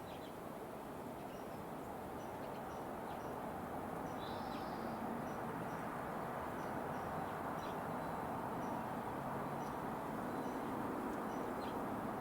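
Small songbirds giving short, high chips every second or so, with one longer, louder call about four seconds in, over a steady low background noise.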